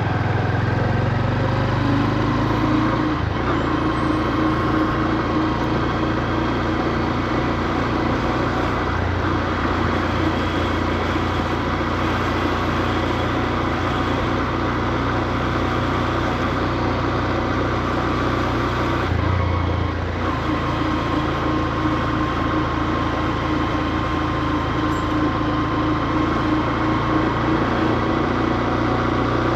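Honda CB125F's single-cylinder four-stroke engine running under way at low to moderate revs, as it is being run in. Its pitch changes about three seconds in, and again with a brief dip in level about twenty seconds in.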